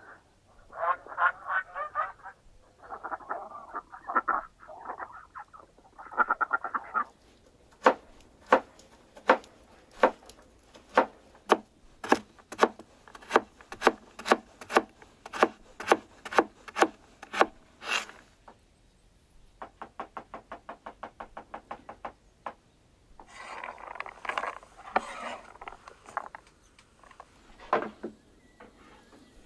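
Sheep bleating in short broken calls. Then a steel cleaver chops carrots on a wooden board in sharp strokes about two a second, followed by a quick run of rapid light chops, then a few seconds of rustling and scraping and a single knock near the end.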